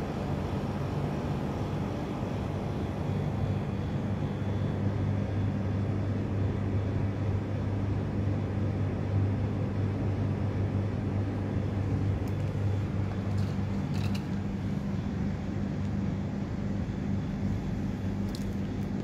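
A steady low machine hum, like a motor or engine running, with a few faint short clicks near the end.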